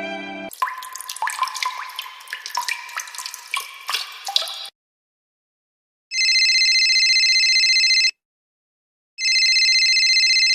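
A water-drip sound effect: quick plinking drops for about four seconds. After a pause, a steady warbling ring sounds twice, about two seconds each with a short gap between.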